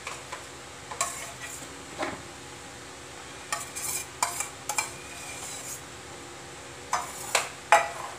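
Steel spoon scraping and tapping inside a small stainless-steel bowl, knocking mashed potato out onto a steel plate: a string of short clinks and scrapes, the loudest near the end.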